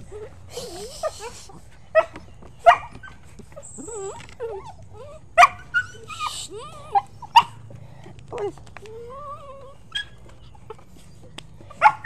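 Dogs whining and yipping: wavering rising and falling whines, broken by about half a dozen short, sharp yelps that are the loudest sounds. Two brief hissy bursts also come, one near the start and one about halfway through.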